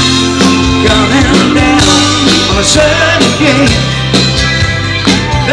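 Rock band playing live through a festival PA: electric guitars, bass and drums.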